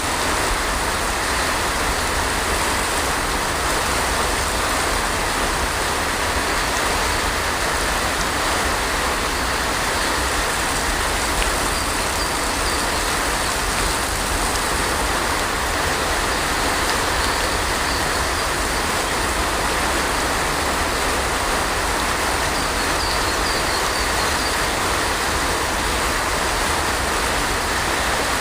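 Heavy rain falling steadily, an even hiss of drops with a low rumble beneath it and no breaks.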